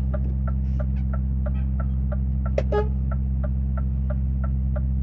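Truck's diesel engine idling with a steady low drone, inside the cab, and the hazard-light flasher ticking about three times a second.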